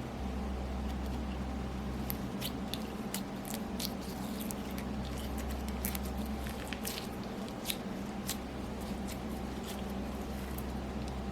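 Slime being kneaded and squished by hand, giving many small sticky clicks and pops, over a steady low hum.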